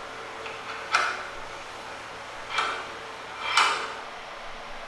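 Three short wooden knocks, a second or so apart, as pieces of the scrap-wood vise are handled.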